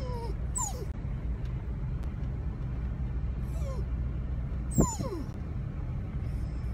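A dog whining eagerly at a car window: several short, high whines that slide down in pitch, the loudest about five seconds in, over the steady low rumble of the moving car's cabin. Excited whining in anticipation of a favourite outing.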